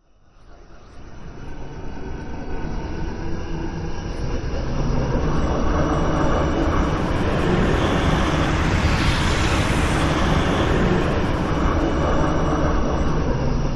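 Designed sci-fi 'evil space breath' sound effect: a deep, rumbling, breath-like rush that swells up from silence over the first few seconds, gains a hissing edge around the middle, and then holds loud and steady.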